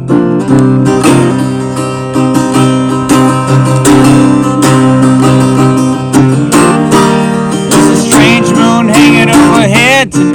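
Country-folk song with acoustic guitar strumming steadily between sung verses; a singing voice comes back in near the end.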